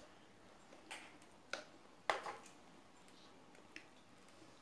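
Faint eating sounds at a meal of chow mein: a few scattered, sharp clicks and taps, the loudest about two seconds in.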